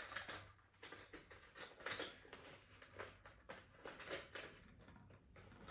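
Faint handling noises: light rustles and soft taps, scattered and irregular, as a pack of bamboo straws is picked up and handled.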